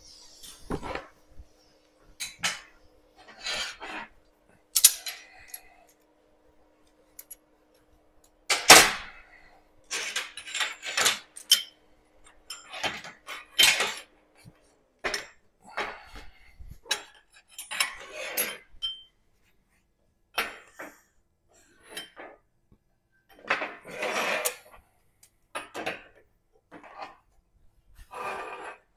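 Irregular metal clanks and clinks as locking C-clamp pliers and a steel exhaust tube and bracket are handled, unclamped and set down on a metal welding table. A low steady hum runs under the first half and stops about halfway through.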